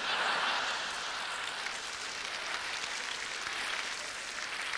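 Live audience applauding, loudest at the start and slowly dying down.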